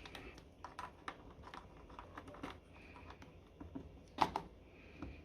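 Small irregular plastic clicks and taps of wire connectors being handled and pushed onto a Samsung washing machine's replacement control board, with one louder knock about four seconds in.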